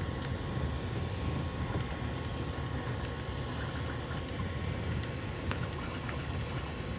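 Bambu Lab A1 mini 3D printer running a print at its ludicrous speed setting: a steady fan whir with a faint motor whine and a few light clicks from the moving print head. The fan is louder than the printer's motion.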